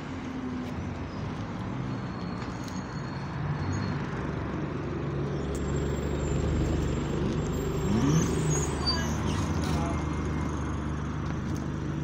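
Single-deck diesel service bus drawing up to the stop and idling, its engine a steady low hum. About eight seconds in, its doors open with a short squeak from the hinges.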